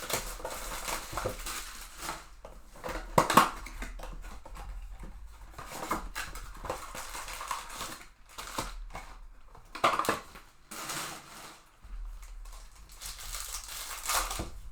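Trading cards and foil pack wrappers being handled: papery rustling and cards sliding against each other, with sharper crinkling or tearing bursts about three, ten and fourteen seconds in.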